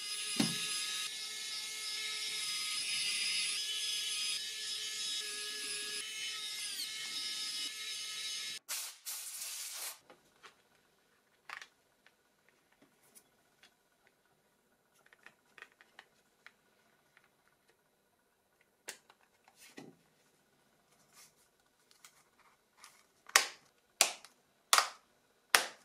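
A small electric tool runs with a steady whir for about eight and a half seconds, then cuts off. Scattered small clicks follow, with a few sharp clicks of phone parts being handled and pressed together near the end.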